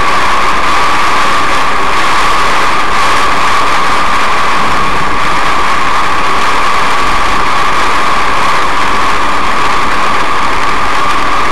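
Heavy cloudburst rain on a moving car's roof and windshield, heard from inside the car as a steady, loud hiss.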